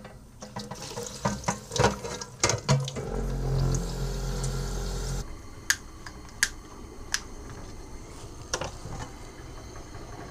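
Galley tap running to fill with water for coffee: clatter of cookware first, then a steady low hum for about two seconds while the water runs, followed by several sharp clicks.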